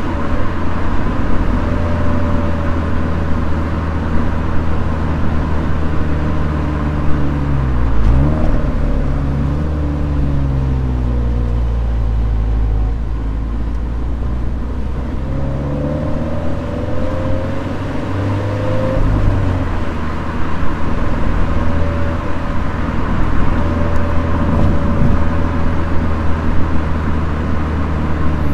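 Toyota 86's flat-four engine running under way over steady road noise. The engine note falls and climbs again about eight seconds in and changes pitch again around sixteen seconds, as the revs change with the gears and throttle.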